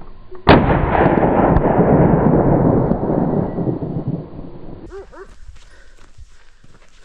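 A single gunshot about half a second in, its echo rumbling on and fading over some four seconds.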